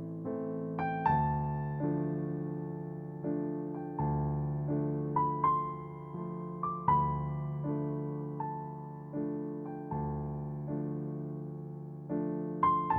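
Background piano music: slow, gentle melody of single struck notes and chords, each ringing out and fading before the next.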